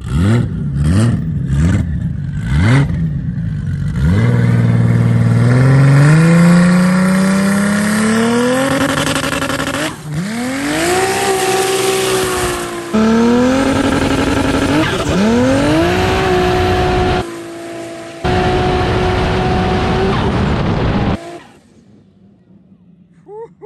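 Polaris RZR side-by-side's engine revved in a few quick blips, then accelerating hard with its pitch climbing steadily. Several more full-throttle pulls follow, held at high revs, before the sound cuts off sharply near the end.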